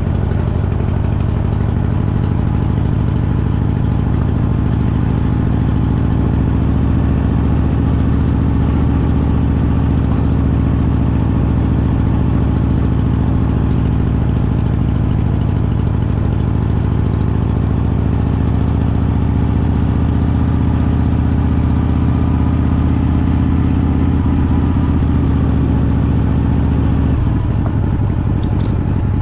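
Motorcycle engine running steadily at low speed while the bike is ridden slowly on a gravel road, heard from a camera mounted on the bike. The engine note changes near the end.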